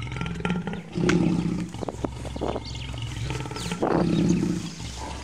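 Lion growling from cover in a thicket: two deep, loud growls, one about a second in and another near four seconds in.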